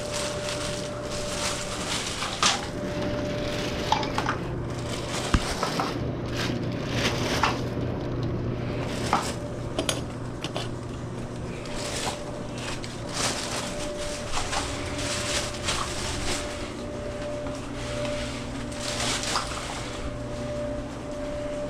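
Metal parts and tools clinking and knocking irregularly while a dryer is being worked on, over a steady low hum.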